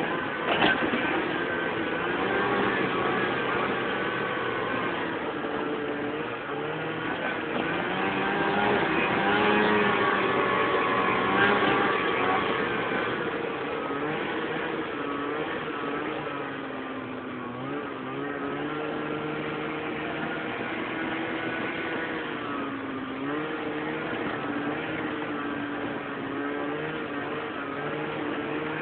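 Lynx GLX snowmobile engine running under way, its pitch rising and falling with the throttle, dipping briefly about two-thirds of the way through and again near the end. A short click sounds just after the start.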